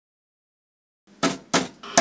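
A CRT television being switched on: silence, then two sharp knocks about a second in, and near the end a click and the set's steady high-pitched whine with a hiss beneath it.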